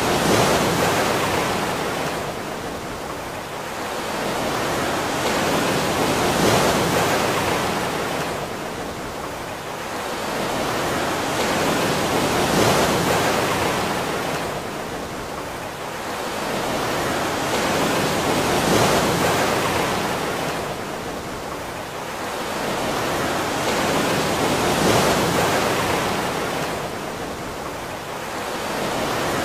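Ocean surf: a rush of water that swells and ebbs in even waves, about one every six seconds.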